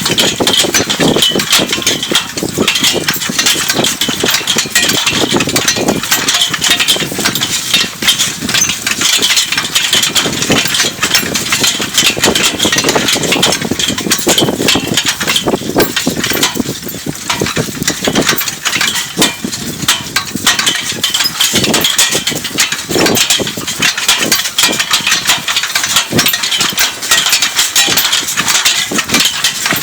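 Horse-drawn IH cultivator working sandy loam under a four-horse team: a dense, steady rattling and clinking of its steel frame, tines and the team's harness chains.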